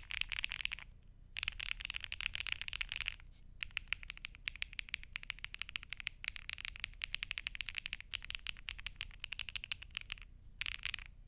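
Fast typing on a Crush80 mechanical keyboard with HMX Machiato switches and full foam dampening: dense runs of quick keystroke clacks, broken by a few short pauses.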